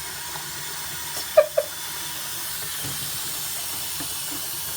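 Tap water running steadily into a sink while hands are washed, a constant hiss with a couple of short faint squeaks about a second and a half in.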